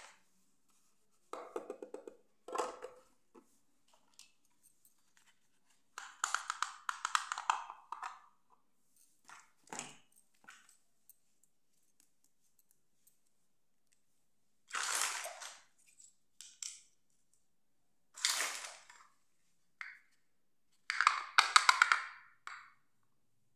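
Small plastic dollhouse furniture pieces handled and set down on a tile floor: short bursts of plastic clicking and rattling, about five of them, with silence between.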